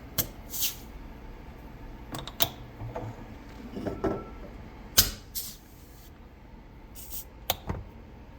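Water kefir bottles being burped: caps click open and gas hisses out in short bursts, several times over. The escaping carbonation from the fermentation releases pressure that would otherwise burst the bottles.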